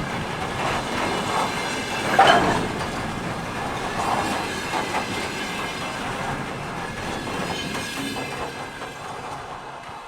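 Railway cars of a diesel-hauled train rolling past, wheels clattering over the rail joints, with one louder clang about two seconds in. The noise dies away near the end as the tail of the train passes.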